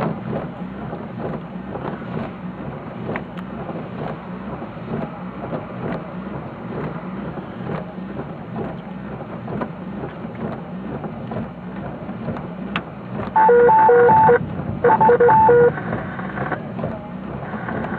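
Thunderstorm wind rushing and buffeting across the microphone in a steady rumble. About thirteen seconds in, two short bursts of loud, pulsing electronic beeps cut in, a second or so each with a brief gap between.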